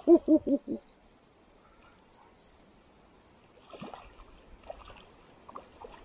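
A man's short, quick chuckle at the start, then near quiet with faint splashes and clicks from about three and a half seconds in, as a hooked largemouth bass is reeled in at the surface of a shallow creek.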